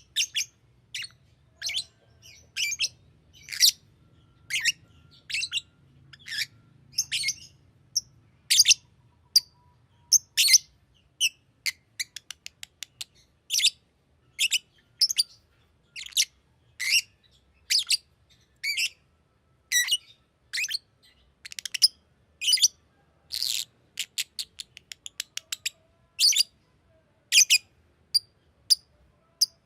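Green lovebird chirping: short, sharp, high-pitched chirps repeated one or two times a second in an irregular string. About eleven seconds in there is a quick run of softer chirps.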